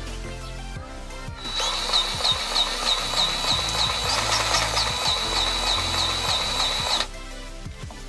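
DeWalt cordless grease gun running for about five and a half seconds as it pumps grease into a front steering grease fitting on a semi truck. The motor gives a steady whine with regular clicks about three times a second, then cuts off suddenly. Background music plays throughout.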